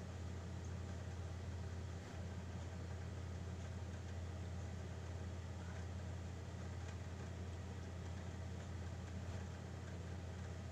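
A steady low machine hum that runs on unchanged.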